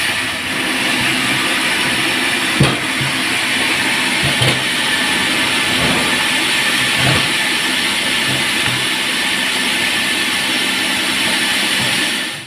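Band sawmill running with a steady, loud machine noise, with a few short knocks about 2.5, 4.5, 6 and 7 seconds in.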